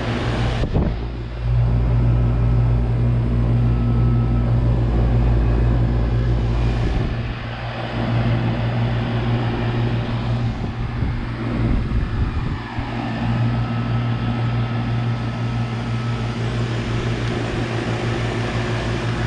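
2001 Carrier central air conditioner's outdoor unit running steadily: a deep, even compressor hum under the rushing of the condenser fan, shifting briefly a couple of times partway through.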